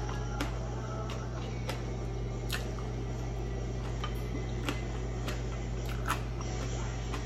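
Quiet mukbang eating sounds: soft chewing with a few light clicks from mouth and chopsticks, over a steady low hum.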